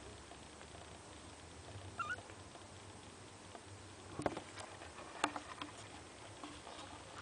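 A young kitten gives one short, high, faint mew about two seconds in. Two sharp clicks follow, about four and five seconds in.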